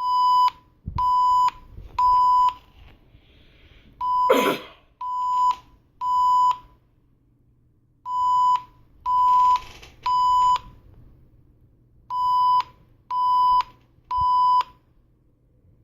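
Fire alarm evacuation tone: electronic beeps in the temporal-three pattern, three half-second beeps and then a pause, repeated four times. This is the tone that a voice evacuation system alternates with its spoken message. A short rush of noise comes about four seconds in, over the start of the second set of beeps.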